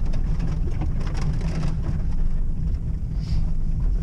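Steady low rumble of engine and tyres heard inside an SUV's cabin driving over a rough dirt track, with scattered knocks and rattles from the bumps, mostly in the first two seconds.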